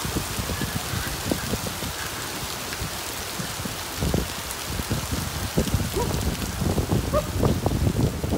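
Hail and rain falling on wet pavement: a steady dense hiss of stones and drops, with irregular low thumps through it.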